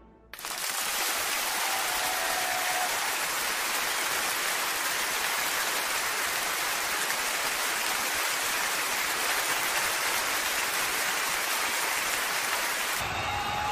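A steady, even rushing noise that starts abruptly and changes near the end as a lower rumble comes in.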